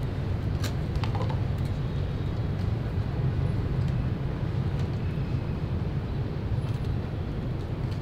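Steady low rumble of city traffic and urban ambience, with a few faint clicks about a second in.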